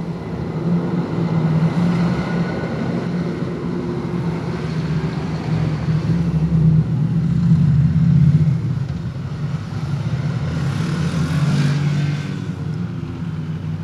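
Heavy truck's diesel engine running as it passes close by: a steady low drone that swells and eases, loudest around the middle of the pass.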